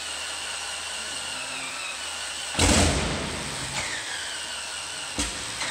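Continental R975 C1 nine-cylinder radial engine on a test stand being turned over by its electric starter, a steady whine that dips in pitch at times. About two and a half seconds in comes a sudden loud burst, and near the end a sharp knock, as it is cranked to try to get it to keep running.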